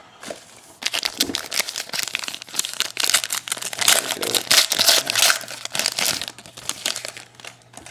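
Hands tearing open and crumpling the crinkly wrapper of a 2012 Topps Tier One trading-card pack: a dense, fast crackling that starts about a second in.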